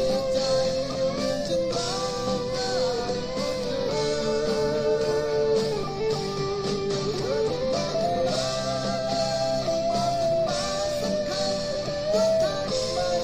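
Eko LP-style electric guitar played through a Cuvave Cube Baby effects unit into a JBL Clip 3 portable speaker, playing a melody of sustained notes with slight bends over changing chords.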